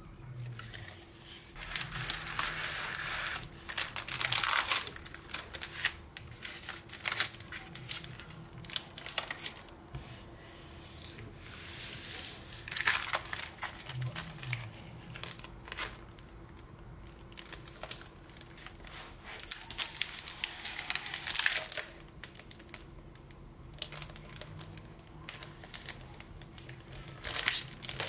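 Clear plastic cellophane sleeves around packs of scrapbook paper crinkling as they are handled and opened. The crinkling comes in bursts with quieter pauses between.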